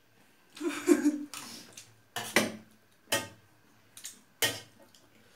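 Spoons clinking and scraping against metal dinner plates during a meal: about five short, sharp clatters spread out a second or so apart, the loudest about a second in.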